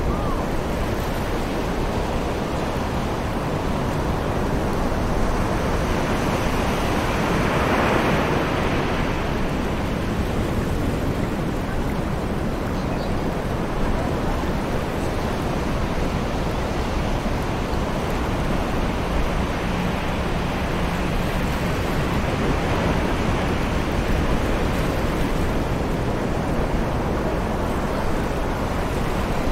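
Distant ocean waves breaking and washing onto a beach, with a steady rush of wind. One wave swells louder about eight seconds in.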